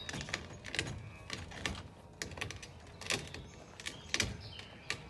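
Gravel crunching and popping under the wheels of a caravan being moved slowly by its motor mover: irregular sharp clicks, several a second.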